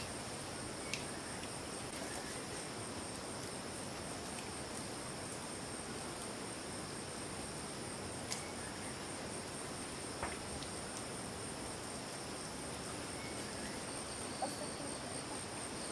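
Steady high-pitched insect chorus with a fast, even pulse in its top band. A few faint, sharp clicks come through on it.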